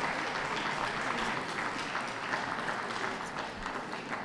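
Indoor crowd applauding, many hands clapping together, the applause slowly dying down toward the end.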